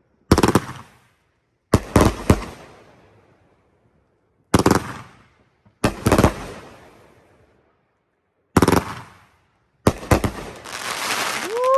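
500-gram consumer firework cake firing shot after shot. It lets off volleys of a few quick reports every second or so, each one fading into crackle and echo, and near the end a longer, denser volley builds as a finale.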